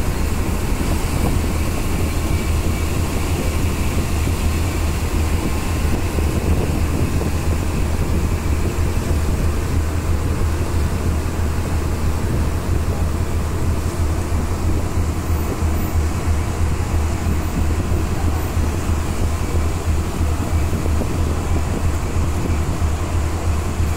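A boat's engine running with a steady low drone under a constant rushing noise, unchanged throughout.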